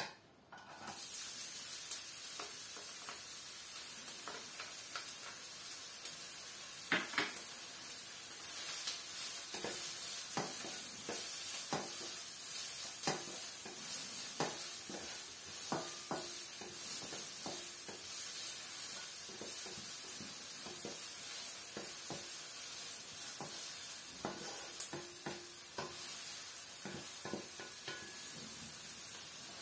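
Chopped onion sizzling in hot olive oil in a nonstick wok. The sizzle starts suddenly about a second in as the onion goes into the pan. A wooden spatula scrapes and taps against the pan throughout as the onion is stirred.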